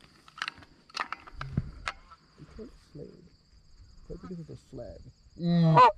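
Canada goose honks: a few soft calls in the middle, then one loud honk near the end, over a faint steady high-pitched tone, with a few light clicks in the first couple of seconds.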